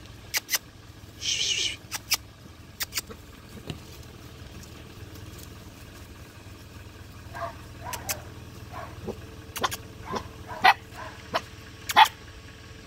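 Young puppies giving short whimpers and yips, with a brief high wavering whine early on, among sharp clicks and knocks, over a low steady hum.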